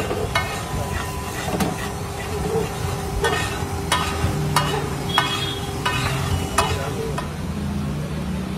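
A metal spatula scraping and tapping on a large flat tawa griddle as pav bhaji is stirred and spread, over the sizzle of the frying mixture. The sharp clicks come irregularly, about one every half second to a second, and stop about seven seconds in.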